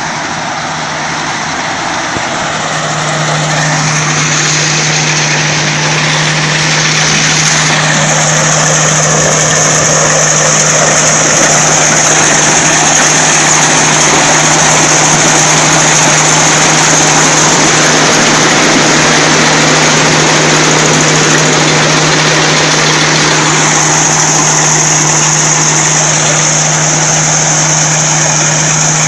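Corn harvesting machine running loudly and steadily, with a constant engine hum under a broad mechanical rush and a high whine that grows stronger several seconds in.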